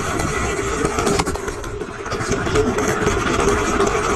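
Die-cast toy car rolling fast down plastic Hot Wheels track, heard from a camera riding on the car: a steady rattling rumble of small wheels on the track, with a few clicks about a second in as it crosses track joins.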